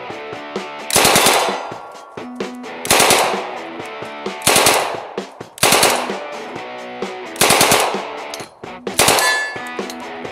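An Uzi-type submachine gun firing six short bursts of automatic fire, about one every second and a half, with rock guitar music playing underneath.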